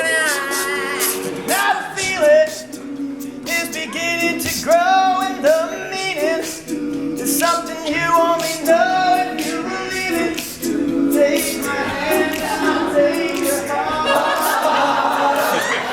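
All-male a cappella vocal group singing a pop song in close harmony, with sharp percussive accents throughout.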